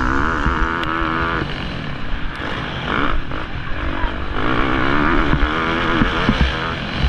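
Motocross bike engine heard from an onboard camera during a race. It revs hard, drops off and breaks up around two to four seconds in, then pulls hard again from about four and a half seconds.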